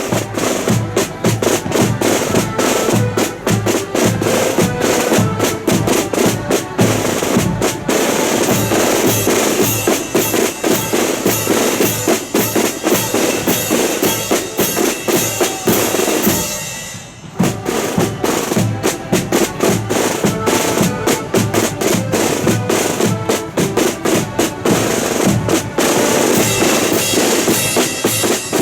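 Marching accordion band playing a tune: accordions over rattling snare drums and a steady bass drum beat. The playing breaks off briefly about two-thirds of the way through, then starts again.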